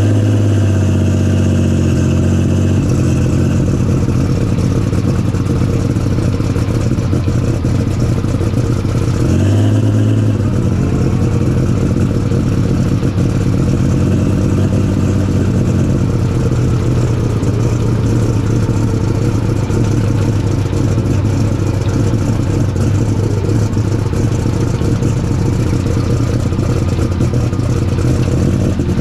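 Superstock class John Deere pulling tractor's engine running on the start line. Its revs fall back to idle over the first couple of seconds, there is a short blip of the throttle about ten seconds in, and then it idles steadily.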